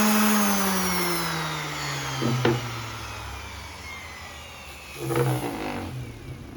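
Electric orbital sander, its torn foam pad glued back with contact cement, winding down after being switched off: the motor's hum falls steadily in pitch and fades. A sharp click comes about two and a half seconds in and a short louder clatter about five seconds in.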